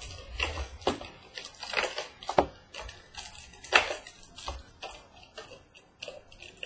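A trading-card box and its packaging being handled and opened by hand: irregular rustles, scrapes and light clicks of cardboard and wrapper.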